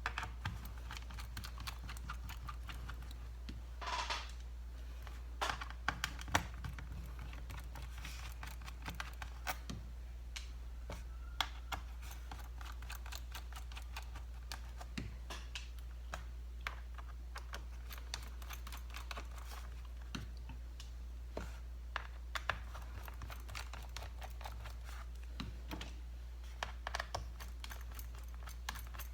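Scattered light clicks and taps of a pentalobe screwdriver working the bottom-case screws of a MacBook Air and of the laptop being handled, irregular throughout, over a steady low hum.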